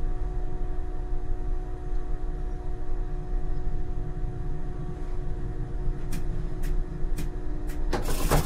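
ČKD Tatra T6A5 tram: a steady electrical hum of several tones over a low rumble. From about six seconds in come four sharp clicks about half a second apart, then a louder rush near the end.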